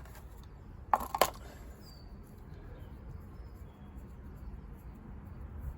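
Two sharp metallic clicks about a second in as a pair of measuring calipers is taken out and handled, followed by a few faint, short, high bird chirps.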